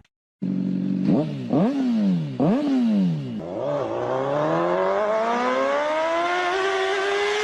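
An engine revving: after a short silence, its pitch jumps up and sinks back three or four times, then climbs slowly and steadily as it speeds up.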